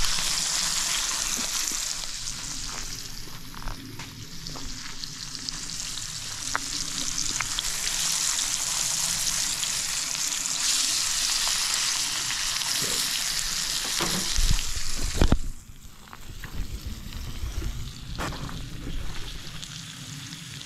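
Steak searing in butter in a cast-iron skillet: a steady loud sizzle with a few sharp pops. About fifteen seconds in there is a brief low rumble, and after it the sizzle is fainter.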